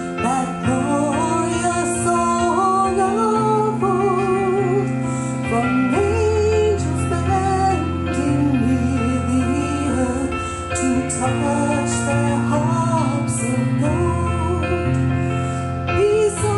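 A woman singing with vibrato into a microphone over instrumental backing with long, held bass notes.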